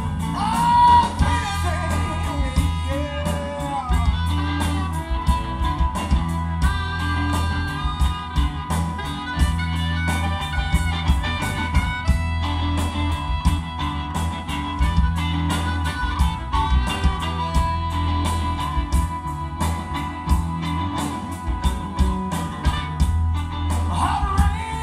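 Live electric blues band playing: electric guitar over bass and drums, with a steady beat and held, bending guitar notes.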